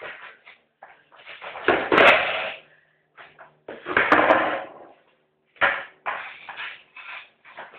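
Skateboard clattering on a concrete floor: the tail snapping, the board flipping and slapping down, and its wheels rolling briefly, in several uneven bursts with the loudest about two seconds in and four seconds in. The hard knocks echo in a small room.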